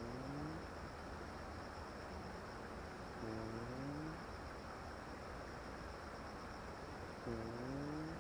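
Crickets chirring steadily under a low hum, with three short rising whines about every three to four seconds.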